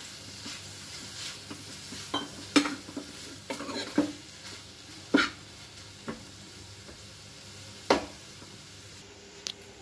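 A steel ladle stirring oyster-mushroom flakes with onion and tomato frying in a metal pan, over a steady faint sizzle. The ladle knocks sharply against the pan about six times.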